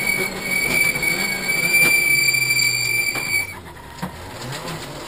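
Rally car's engine heard from inside the cabin, its revs falling as the car slows, with a steady high whine over it that cuts off about three and a half seconds in. The engine then goes quieter and picks up again near the end.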